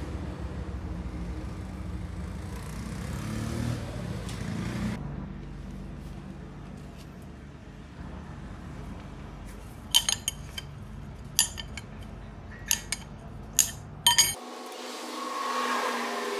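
A steel combination spanner clinking against the bolts of a lathe's compound slide: a run of about eight sharp metallic clinks in the second half, over a low steady hum. Music comes in near the end.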